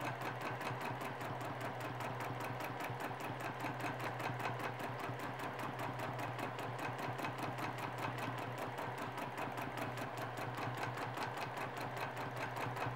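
Domestic sewing machine stitching steadily during free-motion quilting: a rapid, even run of needle strokes over the motor's hum, with no pause.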